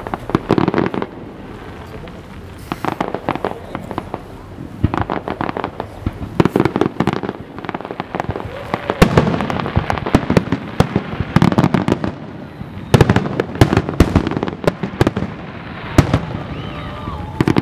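Aerial fireworks shells bursting in quick volleys: clusters of sharp bangs every second or two over a steady low rumble.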